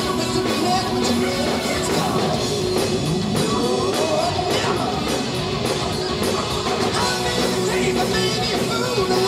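Live hard rock band playing: distorted electric guitar, bass and drum kit, with a man singing over it.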